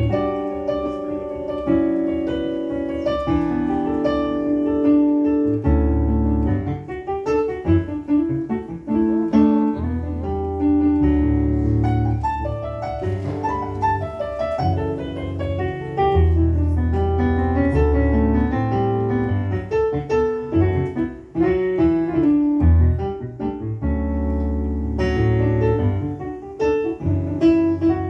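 Piano sound from a Yamaha MO8 stage keyboard, played solo in a jazz style: held chords over a low bass line, with quicker runs of notes in places.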